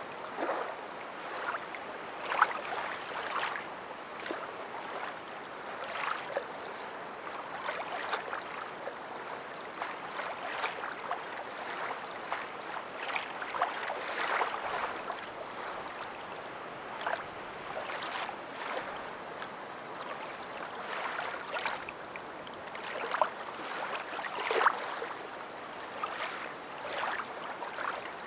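Water sloshing and splashing in irregular short bursts over a steady wash.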